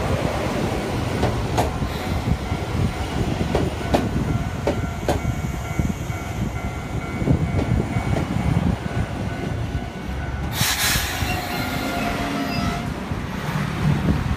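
Nagano Electric Railway 8500-series electric train rolling along the platform and braking to a stop, with a low rumble and scattered clicks from the wheels. About ten and a half seconds in comes a short, loud hiss of released compressed air.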